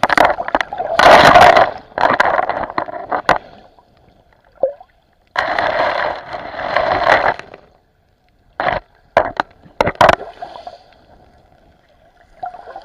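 Water sloshing and gurgling against a camera held in the sea, coming in bursts of rushing noise with silent gaps between them, and a few sharp knocks a little before the ten-second mark.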